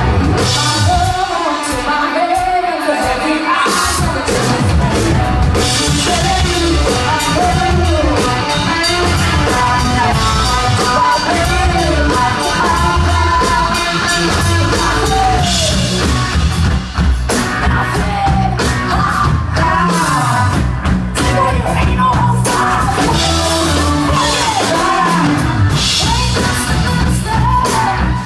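Live rock band playing loud: a woman singing over electric guitar, with drum kit and bass coming in hard about four seconds in.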